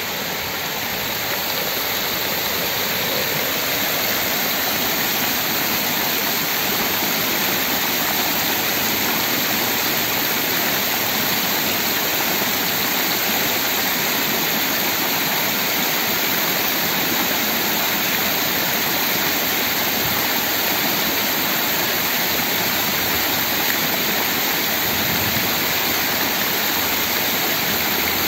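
Basin fountain's row of slanted water jets spraying into a shallow pool: a steady rush of splashing water, growing a little louder over the first couple of seconds.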